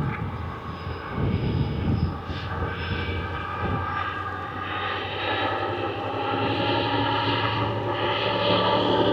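Freight train running across a stone viaduct: a steady rumbling drone with several sustained higher tones, growing gradually louder toward the end. Wind buffets the microphone in low gusts during the first few seconds.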